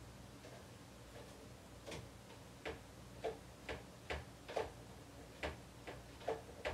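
Faint, irregular light taps and clicks of a cooking utensil against a griddle and its pans, about two a second, starting about two seconds in.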